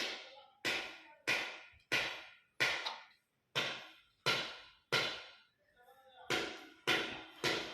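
A series of sharp knocks, about one and a half a second, each ringing briefly before the next, with a short pause twice.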